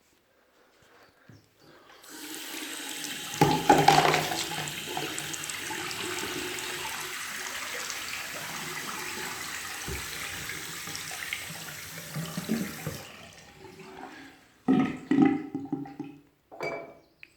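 Balterley Ambience toilet flushing: water rushes in with a loud surge about two seconds in, runs steadily for about ten seconds, then tails off, followed by a few short knocks near the end.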